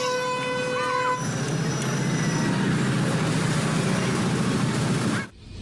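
A steady horn-like tone sounds for about the first second, then continuous rumbling street-traffic noise, which cuts off abruptly near the end.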